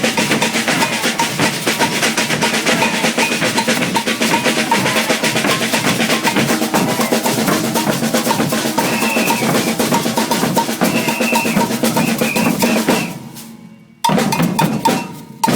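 Maracatu drum ensemble of alfaia bass drums and snare drums playing a dense, driving rhythm together. Near the end it fades away, and about a second later drumming starts again abruptly.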